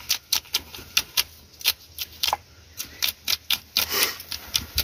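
A knife scraping the scales off a large common carp: a quick run of sharp rasping clicks, about four a second, as scales are lifted and flicked off, with a short break about halfway through.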